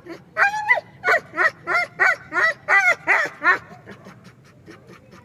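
A dog giving a quick run of about nine high, yelping barks, roughly three a second, stopping about three and a half seconds in.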